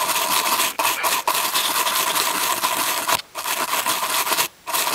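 Toothbrush bristles scrubbing a radio control knob fast and without a break, a dense hiss that stops briefly about three seconds in and again about four and a half seconds in.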